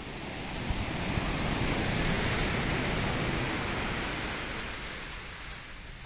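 Surf on a beach: a wave breaks and washes in, the rush swelling to a peak about two seconds in and then fading. The swell is heavier than usual, raised by a distant typhoon at high tide.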